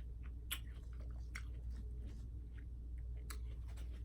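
A person chewing food close to the microphone, with a few sharp mouth clicks and softer ticks spread through it, over a low steady hum.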